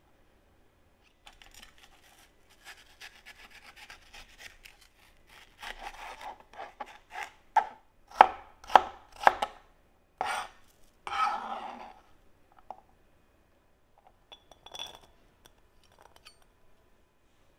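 A serrated kitchen knife cutting and dicing a red bell pepper on a cutting board. It starts with quick light strokes, then moves to harder separate chops about two a second that stop about two-thirds of the way through.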